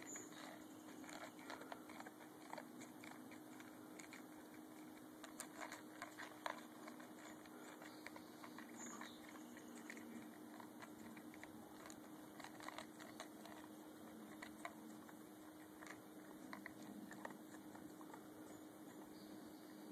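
German shepherd eating dog food from a bowl: faint, irregular crunching and clicking of chewing and bites.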